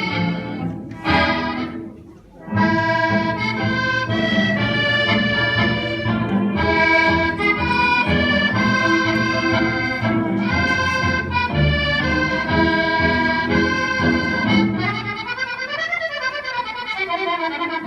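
Accordion music: a melody over held chords, with a brief break about two seconds in. Near the end, runs of notes climb and fall at the same time, in opposite directions.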